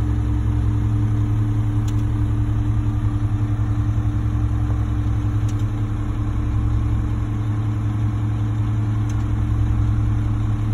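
Concrete mixer truck's diesel engine idling steadily, a low even rumble with no change in speed.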